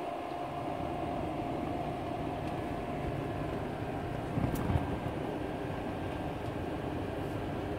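Steady low background rumble with a faint hum, and one brief low bump with a click about halfway through, like a phone being knocked or handled.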